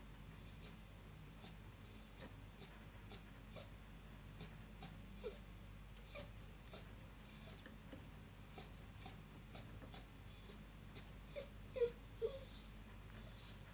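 Zebra finch giving a few short, soft calls, several in quick succession near the end, over faint scattered clicks, as it sits drying after a bath.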